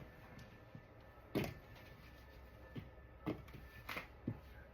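A few short, separate knocks and clunks, with pieces of cut golden potato being dropped into a bowl of oil and seasoning.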